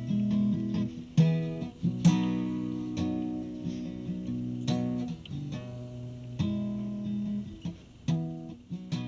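Acoustic guitar music: plucked and strummed chords, each one ringing out and dying away before the next.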